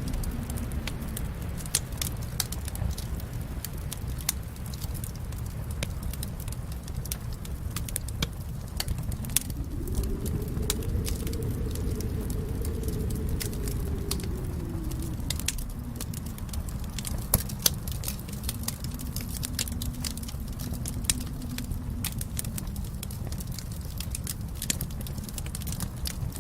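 Wood fire crackling, with sharp pops scattered irregularly over a steady low rumble of flames. A faint low tone swells and fades slowly a few times, strongest about ten seconds in.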